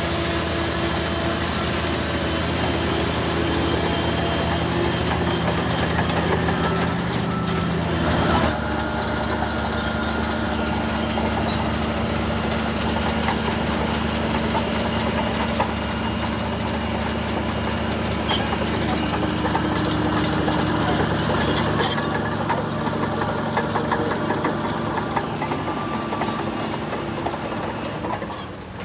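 Heavy construction machine's diesel engine running steadily. Its note changes abruptly about eight seconds in, then it runs on at the new pitch.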